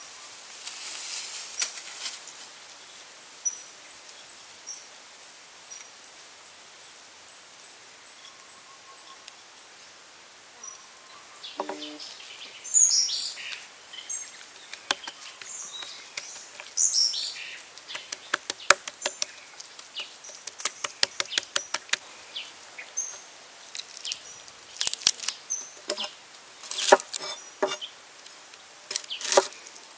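Birds chirping, with an evenly repeated high ticking call for several seconds. Later come many sharp irregular taps of a cleaver cutting garlic cloves against a wooden chopping block.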